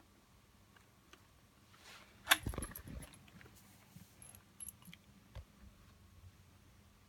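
One sharp clack with a short rattle about two seconds in, then a few light clicks: hard parts of a hoverboard being handled while its battery is connected.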